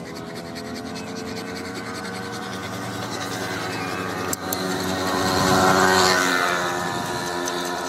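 A hand file scraping along a steel sickle blade held on an anvil, with a motor vehicle passing close by that grows louder to a peak about six seconds in and then fades.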